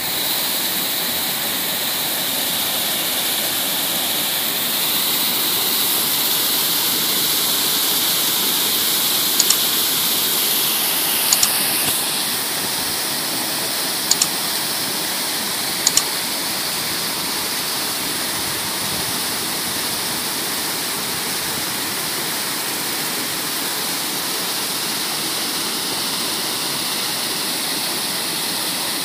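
Water rushing out steadily as a water tank is emptied. It turns slightly duller about halfway through. A few brief sharp clicks come over the middle third.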